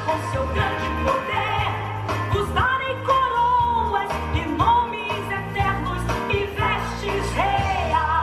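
Recorded song playing: a sung melody with long held notes over a band with steady bass and drums.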